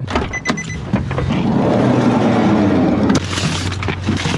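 Handling noise at a work van's open side door: two short beeps near the start, then a rumbling scrape lasting about two seconds, then a steady low hum.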